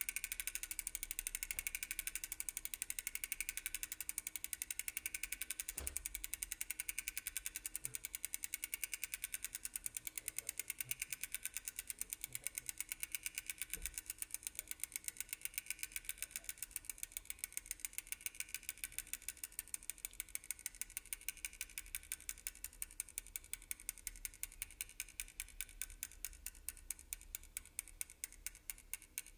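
Bicycle rear freewheel ratchet ticking rapidly while the bike coasts, the ticks slowing steadily as the bike loses speed. A low wind rumble on the microphone runs underneath, with a couple of dull bumps from the wheels on the path.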